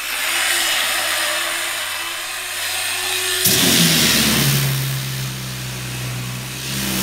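Electric orbital sander running, then sanding the inside of a cedar-strip canoe hull. About three and a half seconds in, the round pad goes onto the wood and the sound turns louder and harsher.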